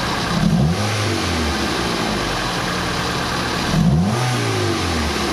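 Toyota 4A-FE four-cylinder engine idling, revved briefly twice with quick throttle blips that rise and fall back to idle, about half a second in and again near four seconds in.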